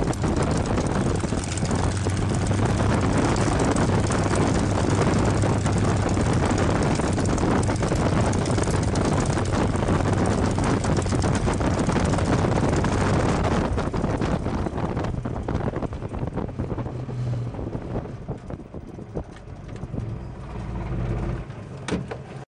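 P-51D Mustang's Packard Merlin V-12 engine running at idle, heard from the cockpit with wind on the microphone. About two-thirds of the way through, the engine is shut down: the sound falls away and runs down unevenly as the propeller winds down.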